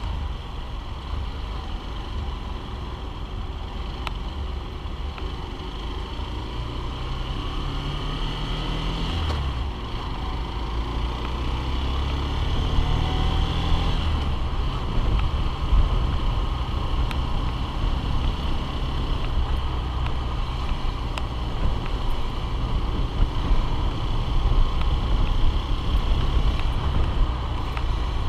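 Honda CBF125R's single-cylinder engine running on the move, its pitch rising as it accelerates twice, under a dense low rumble of wind on the microphone.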